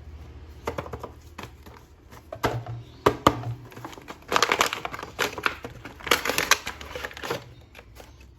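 Plastic toy packaging being crinkled and pulled open by hand: irregular crackling with short clicks, busiest about halfway through and again near the end.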